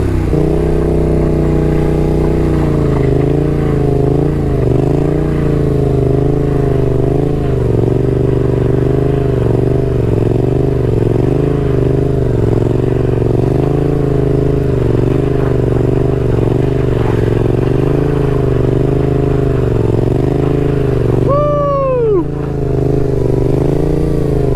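Yamaha XSR700's 689 cc crossplane parallel-twin running at low, steady revs with small throttle wavers, held in a slow wheelie. A short squeal that rises and falls in pitch about three seconds before the end.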